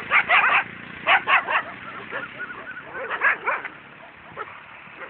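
Dogs barking and yelping in a fight, in three quick volleys of sharp barks: one at the start, one about a second in, and one around three seconds in, with fainter calls after.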